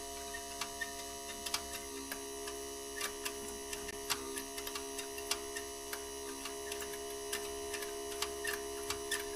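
Electric fuel pump running on a temporary fuel tank: a steady hum with irregular sharp ticks, about one or two a second, as it pumps fuel to the carburetor.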